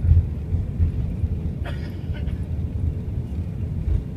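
Deep, uneven rumble inside the cabin of an Airbus A380 rolling along the runway after landing. A short, higher sound stands out briefly about halfway through.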